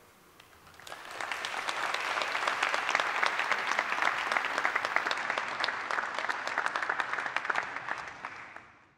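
Large audience applauding. The clapping swells in about a second in, holds steady, then thins and fades out near the end.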